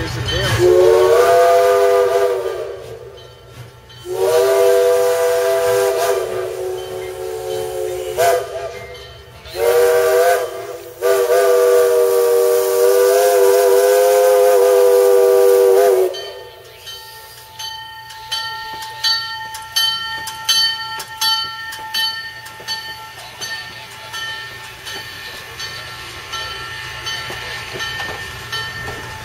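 Steam locomotive's chime whistle blown four times, long, long, short, long, the grade-crossing signal. Each blast is a chord of several notes whose pitch wavers slightly. Once the whistle stops, the locomotive bell rings on with repeated strokes, growing fainter.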